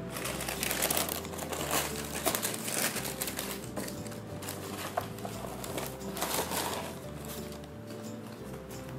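Tissue paper rustling and crinkling as it is unfolded and a pair of shoes is lifted out of a cardboard shoebox, with a few light knocks, in irregular spells.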